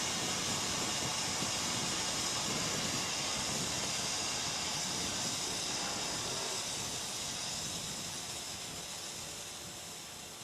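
A steady hiss over the team radio that slowly fades away.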